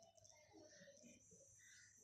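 Near silence: faint background room tone.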